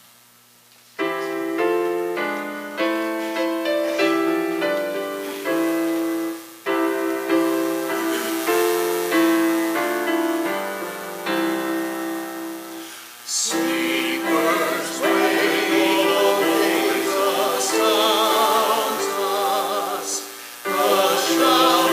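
About a second in, a piano begins an introduction of struck chords and a melody. Around 13 seconds in, voices with vibrato start singing a hymn over the piano accompaniment.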